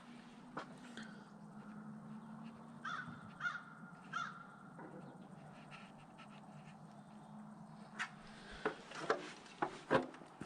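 A crow cawing three times, short calls a little over half a second apart, followed later by several sharp knocks.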